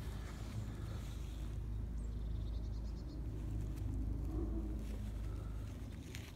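Low steady rumble of wind on the microphone, with faint bird chirping about two seconds in.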